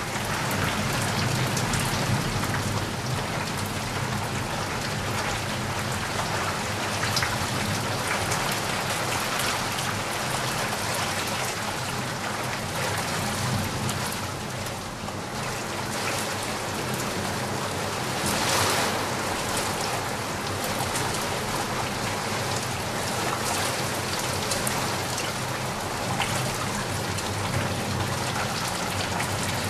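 Steady rain falling, a dense, even hiss of drops, swelling briefly about two-thirds of the way through.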